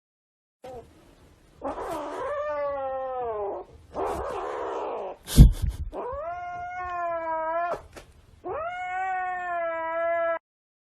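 A cat yowling in three long, drawn-out wails, with a rough noisy stretch between the first two and a sharp knock about five seconds in.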